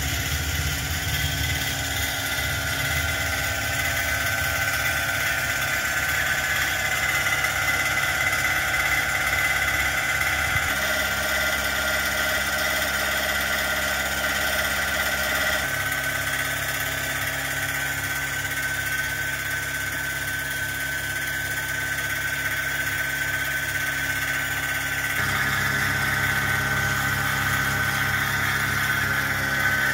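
Small petrol engine of a portable milking machine running steadily, driving its vacuum pump, with a steady high whine over the engine note.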